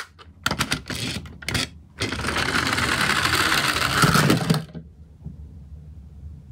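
Small plastic toy garbage trucks rolling down a wooden board: a few clicks and clatters, then a dense whirring rattle of wheels on wood for about three seconds that cuts off as they stop.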